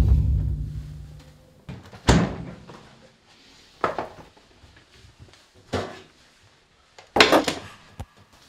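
Kitchen handling sounds: a fridge door shutting with a thud about two seconds in, then a few separate knocks and clatters as an egg box and a frying pan are set down on the worktop and a ceramic hob, with a short sharp click near the end.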